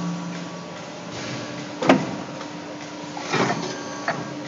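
CNC pipe bending machine humming steadily, with a single sharp metallic clank about two seconds in. A scraping rush follows a little later as the bent steel exhaust pipe is taken out of the bending dies.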